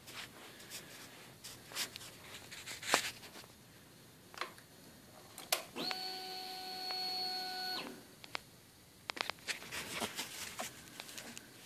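Honda CBR929RR's electric fuel pump whirring steadily for about two seconds as the ignition is switched on, priming the fuel system with the engine off. Scattered clicks and handling noises before and after.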